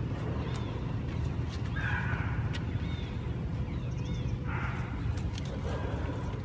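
Two short, harsh calls from long-tailed macaques, about two and a half seconds apart, over a steady low rumble, with small birds chirping repeatedly.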